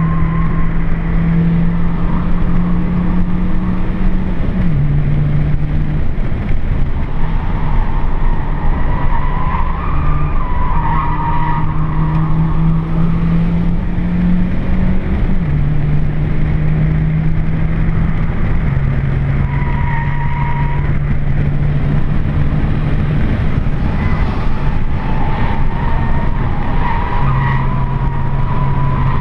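Nissan Micra K11's engine working hard, heard from inside the cabin, its pitch creeping up and then dropping in a step several times as gears change. Over it, the tyres squeal in wavering bursts through the corners, near the start, around 10 to 12 seconds in, and again near the end.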